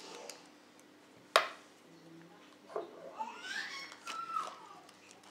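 ABUS 85/40 brass padlock's shackle snapping shut with one sharp click a little over a second in, then a knock as the lock is set down on a wooden table. A voice sounds in the background.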